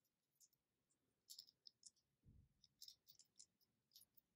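Faint clicks and ticks of small plastic toy parts, a Kinder Surprise toy vehicle with rubber wheels, being handled and fitted together by fingers, in irregular clusters, with one soft low thump a little past halfway.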